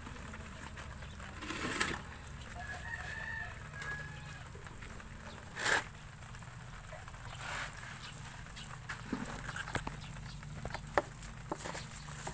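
A rooster crowing faintly, over light clicks and rustling from the catch of shrimp, crabs and wet leaves being stirred in a plastic basin, with one brief, louder rustle a little before the middle.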